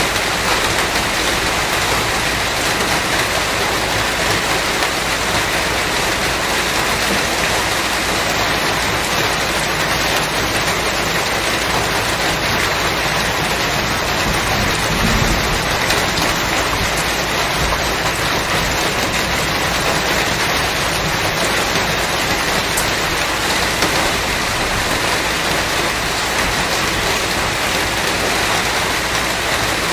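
Steady rainfall, a dense, even patter with no let-up, and a brief low rumble about halfway through.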